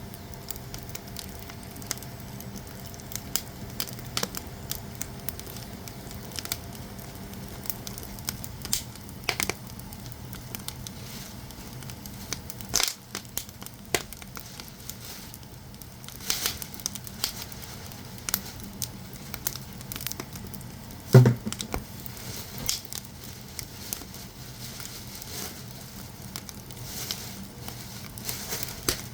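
Split firewood burning in a traditional Korean agungi firebox, crackling with irregular sharp pops. The loudest pop comes about two-thirds of the way through.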